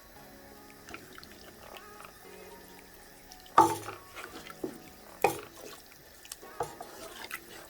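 Watery sloshing in a pot of soup as bitter leaf goes in, with several sharp clanks of a utensil against the pot, the loudest about three and a half seconds in.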